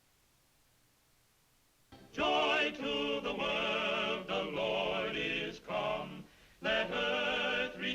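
Near silence, then about two seconds in a choir starts singing with wavering, vibrato-laden voices, breaking off briefly a little past the middle before carrying on.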